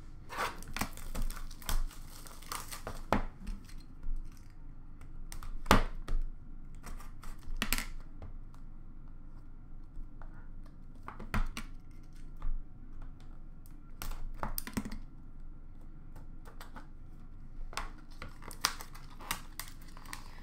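Plastic shrink-wrap crinkling and tearing as a sealed Upper Deck Splendor hockey card box is unwrapped by hand, with scattered clicks and taps of the cardboard box being handled. The crackles are dense at first and thin out in the second half.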